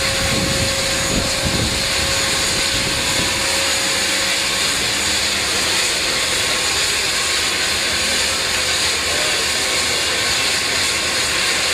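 Seaplane's engines running with a steady drone and hiss, with a low rumble that fades over the first two seconds.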